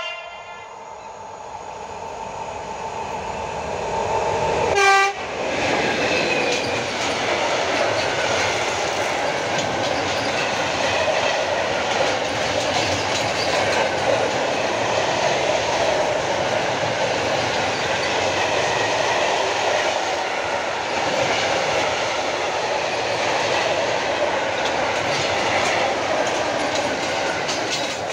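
A freight train sounds its horn briefly right at the start, then again, louder, about five seconds in as it nears. Then a long line of open-top freight wagons rolls past with a steady rumble and wheel clatter.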